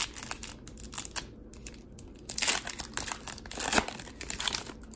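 Wrapper of a Panini Contenders football card pack being torn open and crinkled, with a louder rip about halfway through and another near the end.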